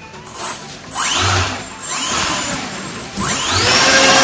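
Electric motor and propeller of a Volantex 768-1 P-51 Mustang RC plane run up three times on the throttle, each a rising whine, the third the longest and loudest.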